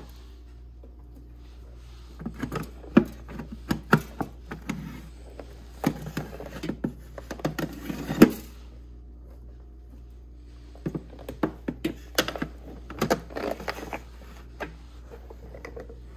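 Wire mesh trays of a Pampered Chef Deluxe Air Fryer clinking and knocking against the oven's metal rack rails as they are pulled out, swapped and slid back in. The clatter comes in two bouts with a pause between, over a low steady hum.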